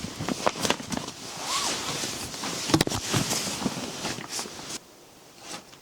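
Rustling with scattered clicks and knocks, like things being handled, with one sharp click about three seconds in; it drops away near the end.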